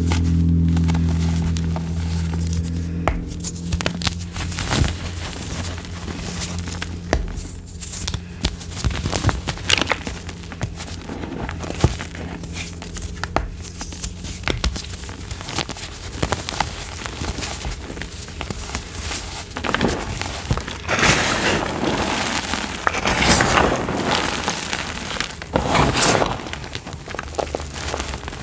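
Crumbly chalk-like material being crushed, an irregular stream of crunches and crackles that grows heavier and denser about two-thirds of the way through. A low hum sits under the first few seconds.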